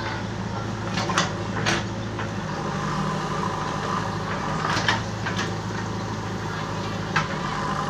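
JCB 3DX backhoe loader's diesel engine running steadily while the backhoe arm swings and digs, with a few sharp knocks scattered through.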